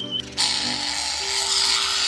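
Background music with a loud, harsh rasping buzz that starts about half a second in and lasts almost two seconds.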